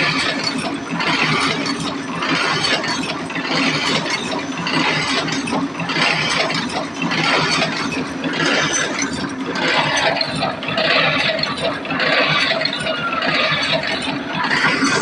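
Automatic clothes-hanger making machine running through its cycle, a metallic clinking and rattling burst repeating about every 1.2 seconds over a steady motor hum.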